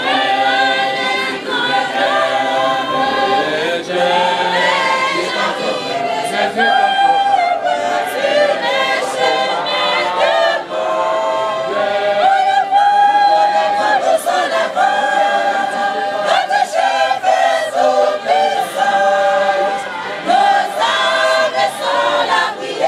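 Church choir of many voices singing a gospel song a cappella, holding long notes together in a steady, continuous melody.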